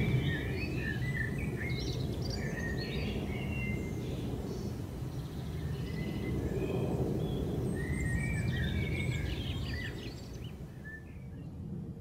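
Low rumble of an airplane passing overhead, swelling around the middle and fading away near the end. Small birds chirp over it in short bursts.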